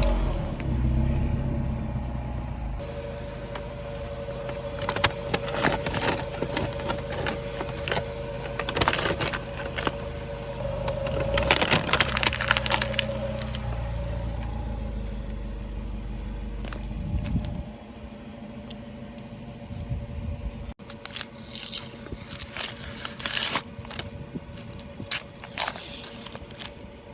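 Car engine running slowly while its tyres crush crunchy objects, with many sharp cracks and crunches. The engine hum drops away about two-thirds of the way through, leaving scattered crackling.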